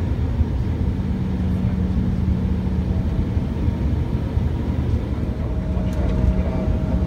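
Cabin noise inside an Embraer 175 regional jet taxiing: the steady low rumble of its twin CF34 turbofan engines at taxi power, with a steady hum over it.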